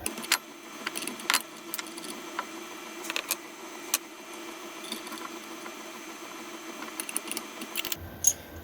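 Scattered metal clicks and clinks of tools and a collet as the cutter is changed in a CNC router's spindle for an 18 mm surfacing bit, over a faint steady hum.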